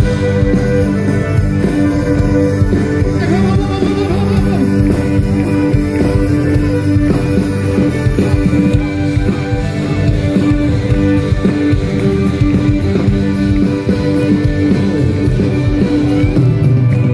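Live folk-rock band playing loudly through a PA, with guitars, banjo, accordion and drums, and singing over it.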